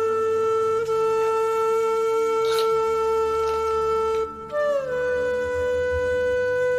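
Background music: a wind instrument holds long, steady notes over a soft low drone. The first note lasts about four seconds; after a short break a slightly higher note comes in and slides down a little.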